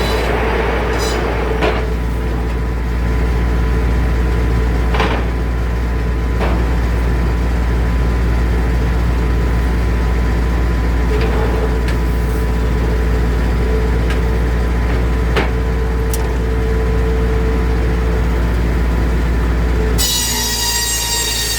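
Circular sawmill running steadily with a constant low drone and hum, with a few light knocks. Shortly before the end the sound changes abruptly to a higher whine with several tones.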